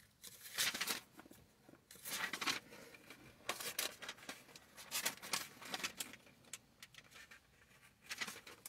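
Pages of a Bible rustling as they are leafed through, in several short bursts.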